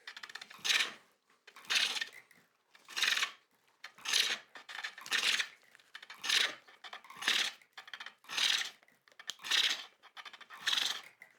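Chisel cutting wood on a foot-powered pole lathe: a rhythmic scraping cut about once a second, each one as the treadle spins the work toward the tool, with quiet return strokes between.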